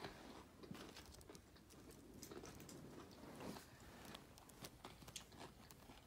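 Faint, irregular small clicks and soft rustles of fidget toys being handled and moved about, close to near silence.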